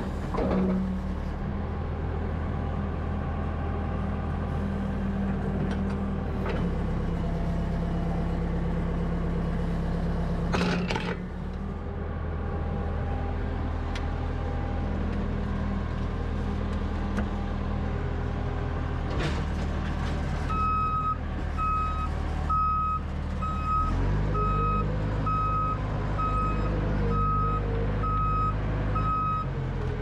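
A 1993 JCB 214SMC backhoe loader's 92 hp diesel engine runs steadily as the machine is driven. Past the middle a reversing alarm starts beeping, about three beeps every two seconds, and the engine note deepens a few seconds later.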